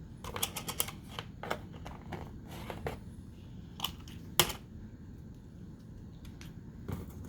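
Glitter slime being squeezed and handled, giving irregular small clicks and crackles, with one sharper click about four and a half seconds in.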